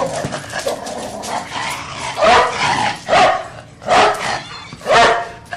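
A dog barking four times, about a second apart, starting about two seconds in.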